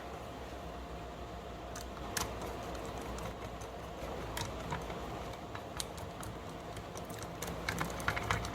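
Light, scattered clicks of a screwdriver turning small screws back into a hotel door lock's clutch plate, coming quicker near the end.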